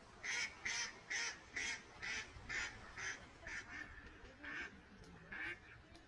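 Mallard quacking: a series of about a dozen loud quacks, roughly two a second, strongest at the start and growing fainter, with one louder quack near the end.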